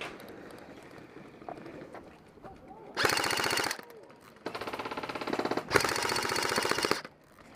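An airsoft electric gun firing on full auto in three bursts of rapid clicking shots: a short burst about three seconds in, then two longer bursts almost back to back.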